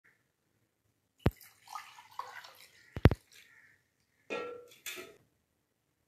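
A mug scooping water from a steel pot. It knocks sharply against the pot about a second in and twice more, loudest, at about three seconds, with water splashing and trickling between and after the knocks.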